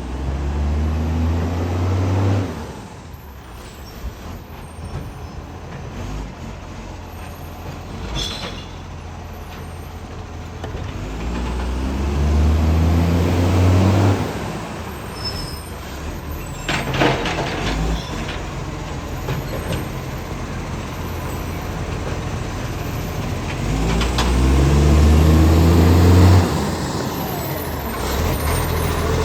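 Acco garbage truck's diesel engine revving up three times, about every twelve seconds, each rise cutting off sharply, over a steady run, with two short sharp noises in between. The truck has an exhaust leak.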